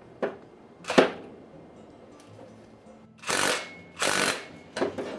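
Cordless DeWalt impact driver on the nut at the end of a power steering cylinder's piston rod, run in short bursts: a sharp knock about a second in, then two half-second bursts about three seconds in and more near the end. The whole rod spins with the nut, so the nut does not come loose.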